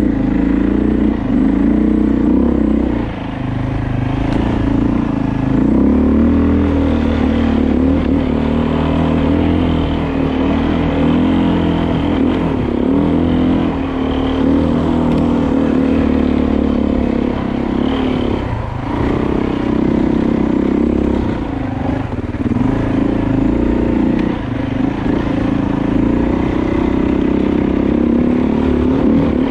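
Dirt bike engine revving up and down with the throttle as it is ridden along single track, heard from a helmet-mounted camera, with several short throttle let-offs where the pitch drops.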